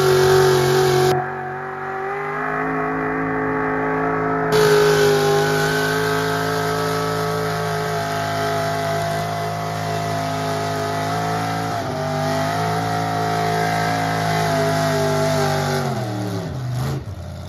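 Mega truck's engine held at high revs while its giant tyres spin in a smoky burnout. The pitch stays nearly steady, wavering a little, then the revs drop away near the end.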